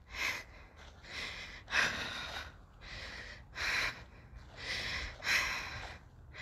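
A woman breathing hard from climbing a steep hill, puffing in and out about once a second. A low wind rumble on the phone's microphone runs underneath.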